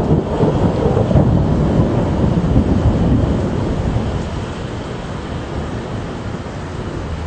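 Thunder breaks suddenly at the start and rumbles low for about four seconds, then fades into the steady hiss of rain.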